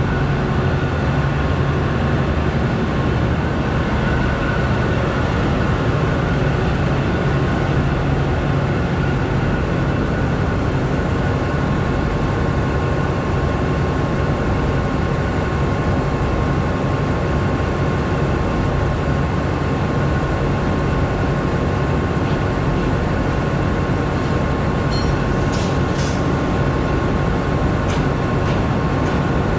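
Diesel locomotive engine running with a steady low drone and a thin high whine above it. A few sharp clicks come near the end.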